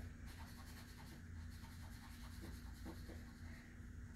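Pencil shading on paper: faint, repeated short strokes as graphite is laid into a dark area of the drawing.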